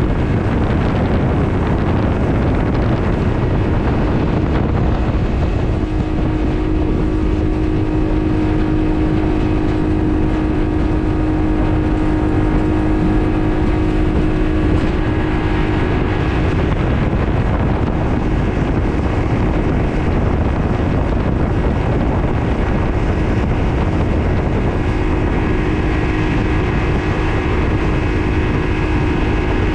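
Honda BF60 four-stroke outboard running steadily at high speed with the boat planing, over the rush of water along the hull. Wind buffets the microphone.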